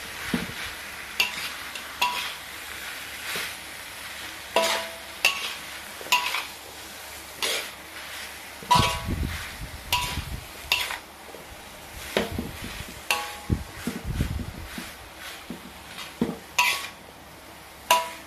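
Metal spatula knocking and scraping against a metal wok while stirring beef lung in sambal, in irregular strokes about once a second. The sharper strikes ring briefly, over a steady frying sizzle.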